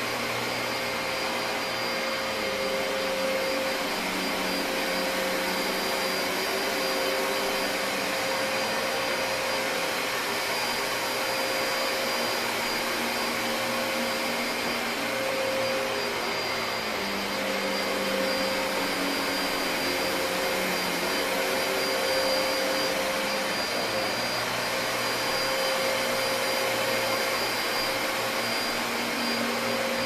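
Dyson DC33 Multi Floor upright vacuum cleaner running steadily while being pushed back and forth over carpet. It makes a continuous rushing noise with a steady high whine, and its level and lower pitch waver slightly with each stroke.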